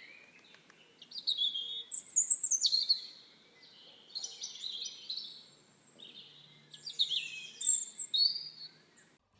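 Small birds chirping and twittering in quick, falling chirps, busiest about two seconds in and again near the end.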